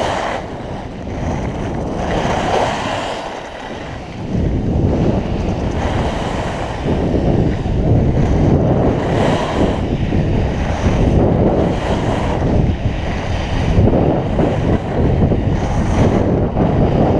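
Wind rushing over a helmet-mounted GoPro Hero 3+ microphone while skiing downhill, mixed with skis scraping over hard granular snow. The sound gets louder about four seconds in and swells in surges about every second and a half.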